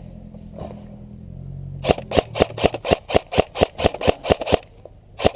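Airsoft rifle firing a quick string of sharp shots, about five a second, for nearly three seconds, with a single shot near the end. A vehicle engine hums low underneath early on and fades out.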